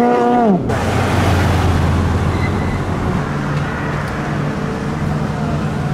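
Jet ski engine revving up and down through turns, cut off abruptly about half a second in. A steady noisy rumble with a low drone follows.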